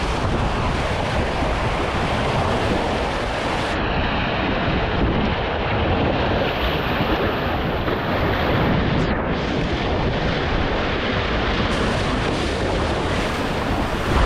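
Sea water rushing and splashing past a Corsair F-27 trimaran's hull and deflector tab at about 15 knots, with steady wind noise on the microphone.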